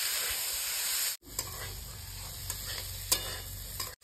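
Chickpeas and masala sizzling in a metal kadhai while a flat spatula stirs them. The steady sizzle cuts off suddenly about a second in, leaving a quieter low hum with a few sharp scraping clicks of the spatula against the pan.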